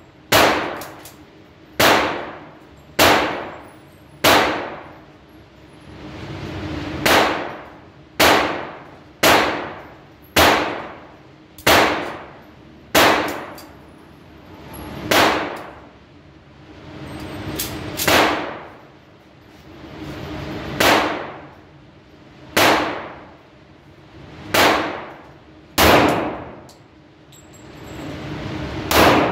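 Springfield Armory 1911 pistol fired in a steady string of single shots, roughly one every one to two seconds, each shot ringing and echoing off the indoor range.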